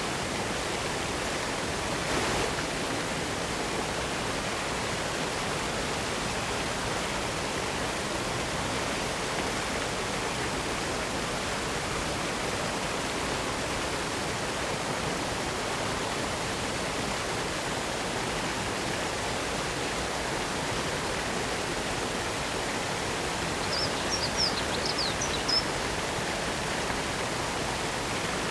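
Steady rush of water falling and splashing at a waterfall. Near the end, a few short high chirps.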